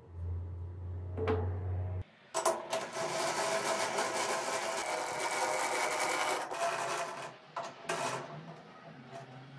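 Three-jaw lathe chuck being worked with its chuck key: the scroll and jaws give a dense metallic rattling and grinding from about two seconds in for roughly five seconds. Near the end there are a few shorter knocks as the steel blank goes into the jaws. A low steady hum comes before this.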